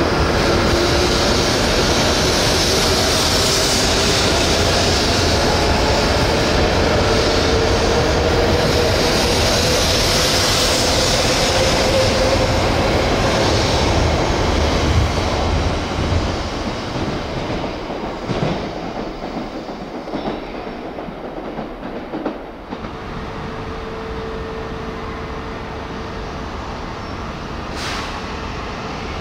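Shinkansen train pulling away and accelerating: a motor whine climbs steadily in pitch over the rush of wheels and air. The train noise fades out about halfway through, leaving a faint steady tone.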